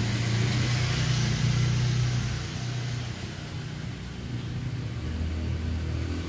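A motor vehicle engine running with a low, steady hum that drops in pitch about five seconds in, over a hiss that fades partway through.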